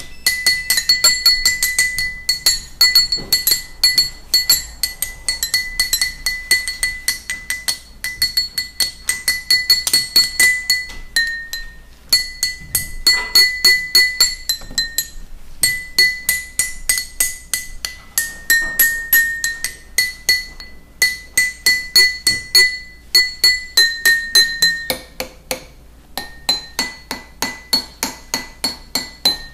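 Drinking glasses struck rapidly and repeatedly, ringing at a clear high pitch. The note steps now and then to a slightly lower one, so it plays as a simple tune.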